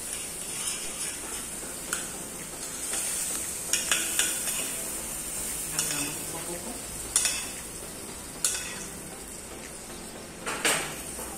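Melted butter and cream sizzling in a frying pan while a metal spoon stirs and scrapes it, with sharp clinks of the spoon against the pan every second or two.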